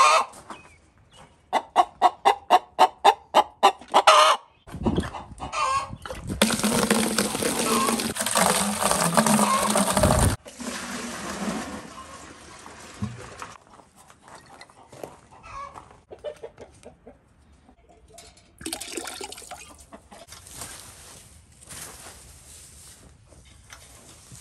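A chicken clucking in a quick, even run of about four clucks a second. Then a long, loud pour from a plastic bucket into a feeder or waterer, which stops suddenly, followed later by boots scuffing through wood-shaving litter on the coop floor.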